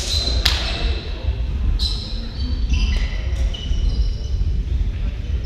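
A volleyball bounced twice on the sports-hall floor, about half a second apart, followed by several short high squeaks of sneakers on the floor, over a steady low hall rumble.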